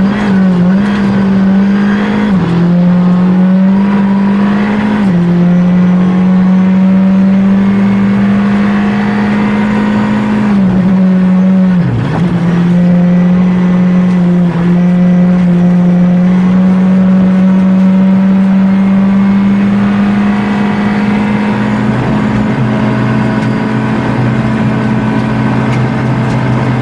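Skoda Fabia R5 rally car's turbocharged four-cylinder engine heard from inside the cabin, running hard at a mostly steady pitch. The pitch steps down and back up in the first few seconds and dips briefly about twelve seconds in.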